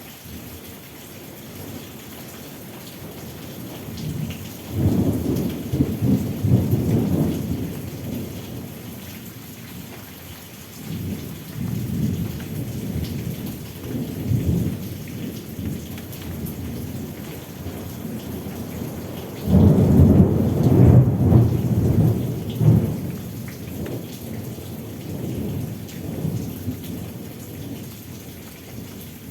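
Steady rain falling, with thunder rumbling in several long, low rolls; the loudest roll comes about two-thirds of the way through.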